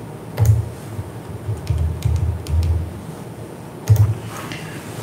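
Scattered clicks with soft low thumps, about six over a few seconds, spaced irregularly like tapping or handling close to the microphone.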